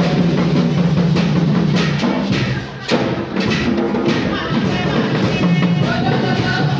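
Live drums played in a fast, dense rhythm, with voices singing along near the end. The drumming dips briefly a little under three seconds in and comes back with a sharp hit.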